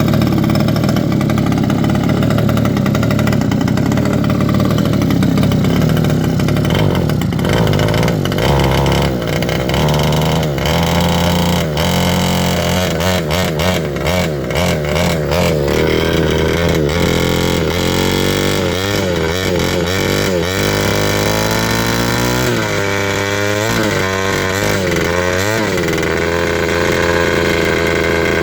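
Small motor vehicle engine running steadily at first, then revving up and down repeatedly through the second half.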